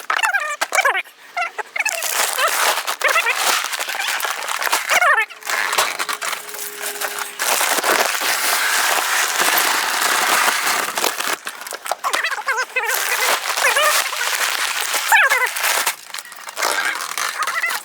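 Short, chirping animal calls over a steady rustling, crackling noise.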